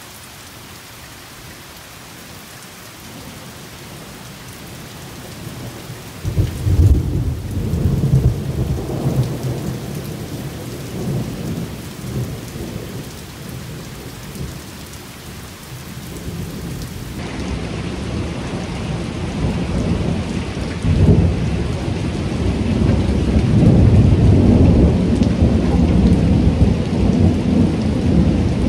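Steady heavy rain, then about six seconds in a deep rumble of thunder breaks out and slowly dies away; a second long, rolling peal of thunder builds through the second half and is loudest near the end.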